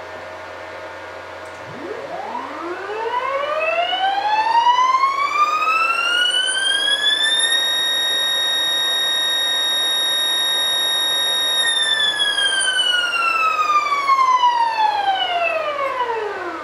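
NEMA 34 12 N·m closed-loop stepper motor whining as it jogs an axis: the pitch rises for about six seconds as the motor accelerates, holds steady for about four seconds at full speed, then falls as it decelerates. A faint steady hum lies underneath.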